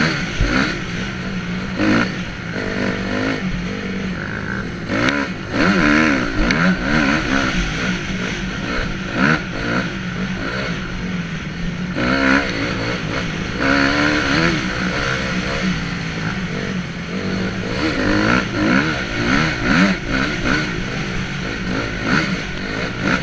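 Honda CRF250R dirt bike's single-cylinder four-stroke engine revving up and down through the gears as it is ridden hard on a muddy trail, heard from on the bike, with a few knocks from the bike over bumps.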